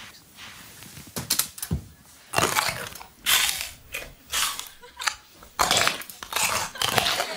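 Fishing reel's ratchet clicking in a run of short, irregular bursts as the line is worked with the rod.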